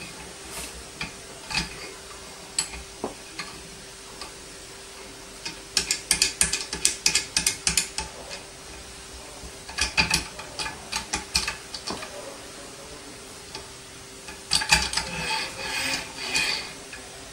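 Rapid metallic clicking from the locking knobs and arm clamp of a boom microscope stand being turned and adjusted, in three bursts after a few scattered clicks, with a faint steady hum underneath.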